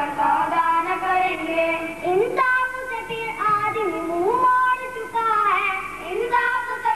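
Boys singing an Urdu tarana, a held, gliding melody; the tune leaps higher about two and a half seconds in.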